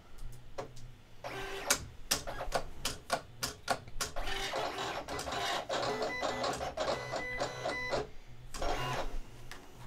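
Silhouette Cameo 4 cutting machine running a test cut in vinyl, its stepper motors driving the blade carriage and roller in quick moves. It makes a rapid run of clicks and short whirs, then a steadier high-pitched whine for a couple of seconds, and stops about eight seconds in.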